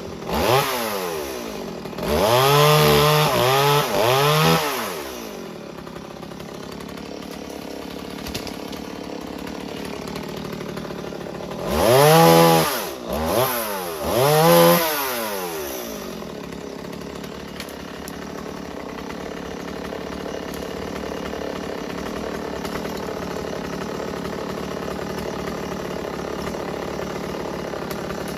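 Two-stroke chainsaw revved in quick throttle blips, its engine note climbing and falling several times in a row, in two clusters about two and twelve seconds in. Between and after the blips it idles steadily.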